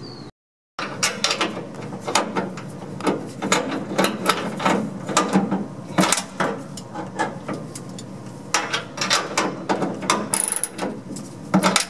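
Socket-wrench ratchet clicking in quick, irregular runs, with metal-on-metal clinks of tools on fasteners under a truck.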